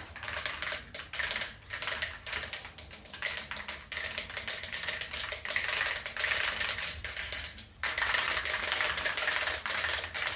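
Aerosol spray-paint can being shaken hard, its mixing ball rattling in fast, dense clicks, with one brief pause about three-quarters of the way through.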